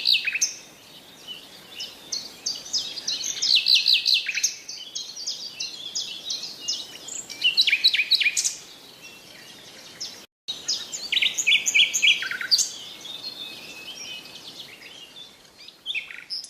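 Songbirds chirping and singing in quick, repeated trills, with a brief break to silence about ten seconds in.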